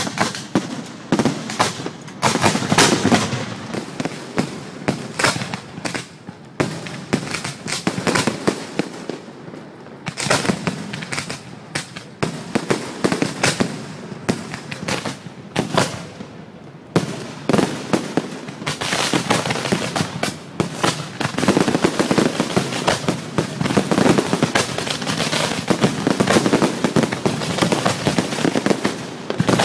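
Aerial fireworks display: a rapid string of shell bursts and crackling bangs, thickening about two-thirds of the way in into a near-continuous barrage.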